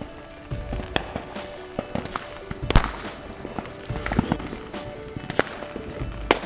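Consumer fireworks going off in an irregular string of sharp cracks and pops, the loudest bang a little under three seconds in, over background music.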